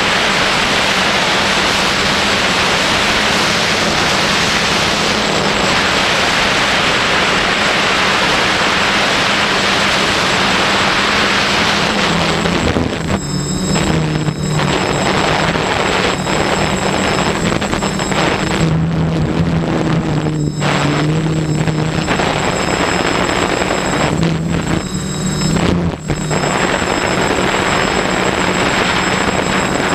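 Quadcopter's electric motors and propellers heard through its onboard camera: a steady rush of propeller and wind noise with a buzzing motor hum that shifts in pitch as the motors change speed. In the second half the noise briefly dips several times.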